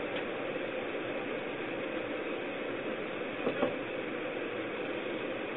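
A bus engine runs steadily, heard as a constant hum and hiss through a security camera's microphone. One short knock comes about three and a half seconds in.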